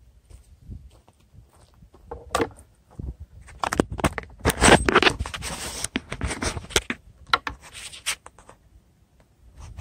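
Handling noise of a camera being picked up off its mount: irregular scraping, rattling and knocking right at the microphone, busiest and loudest about halfway through.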